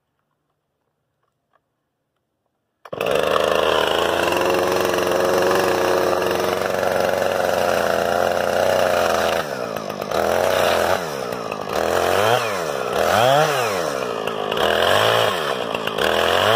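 Silence for about three seconds, then a Husqvarna 460 Rancher two-stroke chainsaw comes in running at high revs, cutting into a dead log with a steady engine note. From about halfway on, the revs rise and fall again and again as the throttle is worked.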